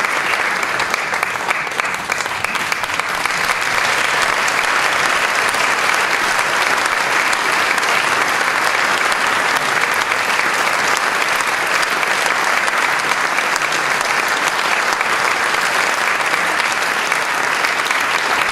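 Large audience applauding, a long, steady round of clapping.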